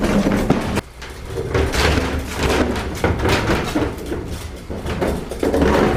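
Rustling and knocking of rubbish being gathered up and carried, handled close to the microphone, with a low rumble of movement underneath.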